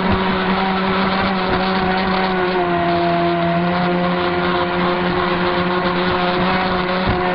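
Radio-controlled speedboat's motor running flat out at a steady high pitch, with water rushing and spray hissing along the hull, heard from on board the boat. The pitch sags briefly about two and a half seconds in, then holds.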